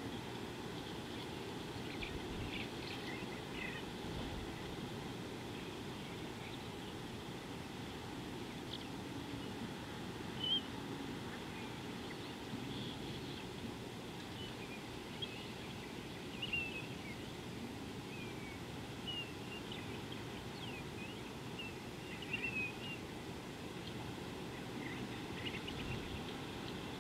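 Wild birds giving scattered short, high chirps, a few louder ones a few seconds apart, over a steady low background hum.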